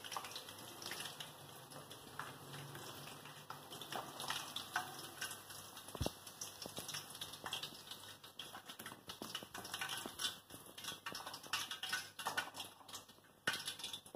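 Battered chicken pieces deep-frying in a kadai of hot oil: an irregular crackle and spatter of small pops from the bubbling oil, with a single knock about six seconds in.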